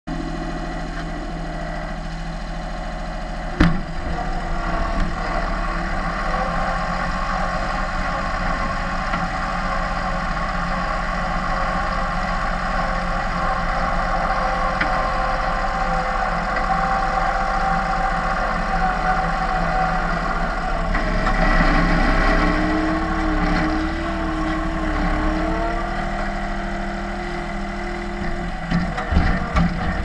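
Gehl 4640 skid steer's diesel engine running steadily under load while it pushes snow, heard from the operator's seat. There is one sharp knock about three and a half seconds in, and a wavering tone and a swell in level about two-thirds of the way through.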